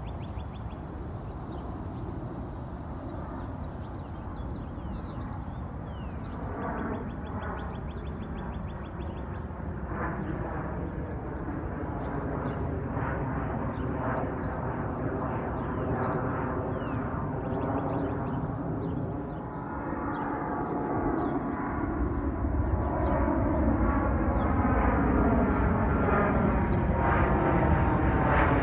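Jet airliners climbing out overhead after takeoff: a steady jet-engine rumble with falling-pitch whines as a rear-engined regional jet passes. It grows louder in the last several seconds as a twin-engine narrowbody jet comes overhead.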